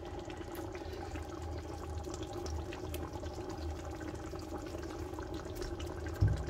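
A pot of pepper-and-tomato stew bubbling and crackling as it cooks in oil, over a steady hum. There is a single dull thump near the end.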